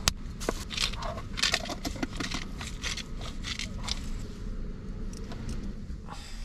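Tableware being handled for a meal: a sharp click, then about four seconds of short crackly scrapes and clicks that die down, over a faint steady hum.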